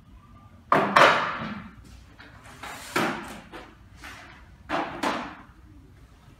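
Sharp knocks and clunks of boxes being handled and set down on a wooden side table: two close together about a second in, another at about three seconds, and one more near five seconds.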